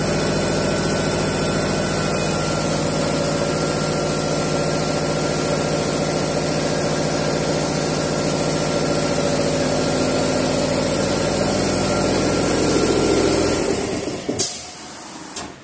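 5-axis CNC machining centre running: a steady machine hum with a high hiss. It dies away about fourteen seconds in and is followed by two sharp clicks about a second apart.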